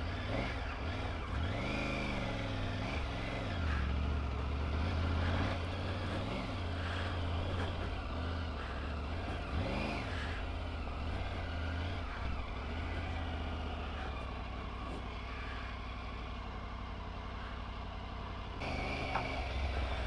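Triumph Tiger 900 Rally Pro's three-cylinder engine running under load on a steep uphill climb, a steady low hum whose pitch rises and falls with the throttle a couple of times.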